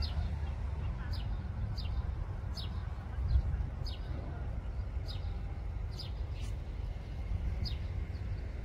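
A bird repeating short, high, slightly falling chirps, one about every half second to a second, over a steady low rumble. There is a brief louder low bump about three seconds in.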